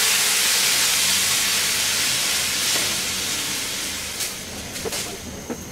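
Water poured into hot oil and fried spices in a frying pan, hissing loudly as it hits the oil and slowly dying down as it settles to a bubble. A few light knocks of the metal spatula against the pan near the end.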